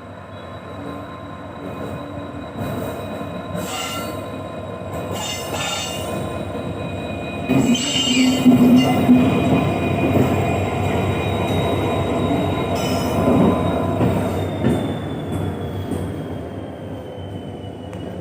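A train passing close by with a steady high-pitched wheel squeal over the running noise. It grows louder to a peak in the middle, then eases off as the squeal slides down in pitch near the end.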